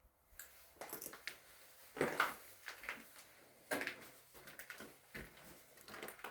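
Footsteps inside an empty room: irregular scuffs and knocks, with a few louder ones about two seconds in and near the middle.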